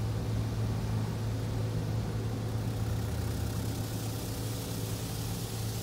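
Rinse water from a Ryko Softgloss Maxx 5 automatic car wash spraying and streaming over the car's windshield and body, heard from inside the car. A steady low hum runs underneath.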